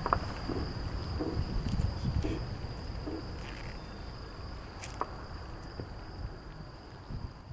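Crickets trilling in one steady high-pitched note at night, over a low background rumble, with a few faint knocks and a single sharp click about five seconds in.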